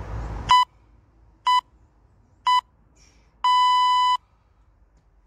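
Workout interval timer beeping: three short beeps about a second apart, then one longer beep on the same pitch. This is the countdown signalling the end of an exercise interval.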